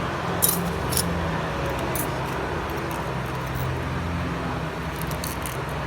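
A few small, sharp metallic clicks and clinks of hand tools against the phone, about half a second, one second, two seconds and five seconds in, over a steady low hum of road traffic.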